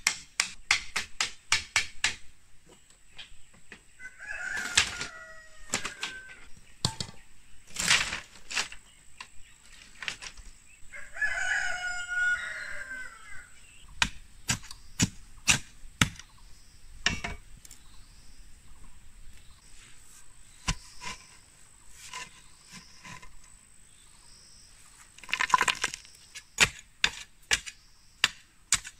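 Quick runs of sharp hammer blows on bamboo, then repeated knocks as a bamboo fence post is pounded into soil. Between the blows a rooster crows twice.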